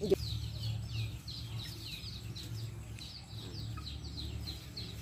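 A small bird chirping over and over in short, falling high notes, about three a second, over a steady low rumble.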